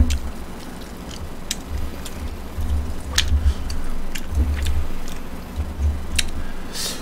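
Chewing and mouth sounds close to the microphone, with a few sharp clicks of chopsticks against the pan as pieces of pork rib are picked up.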